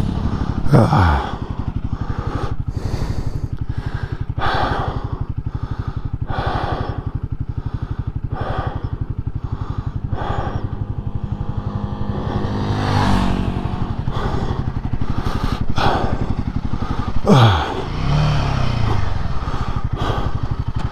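Royal Enfield Himalayan 450's single-cylinder engine idling steadily, with the rider breathing heavily every second or two. Twice a brief sound drops sharply in pitch: about a second in and a few seconds before the end.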